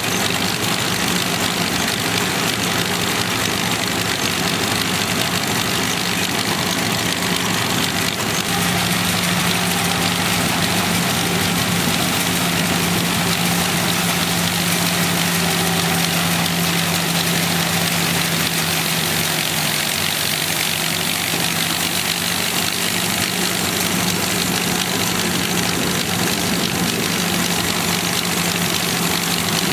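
Engine-driven 1931 Gleaner combine running steadily in the field, its Ford Model A four-cylinder engine driving the threshing machinery, with the engine of the tractor towing it. A steady engine hum rises slightly in pitch about eight seconds in and settles back down a little after halfway, over a constant clatter and hiss of machinery.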